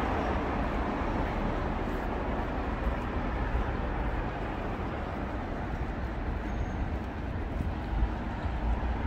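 Steady rumble and hiss of passing vehicles.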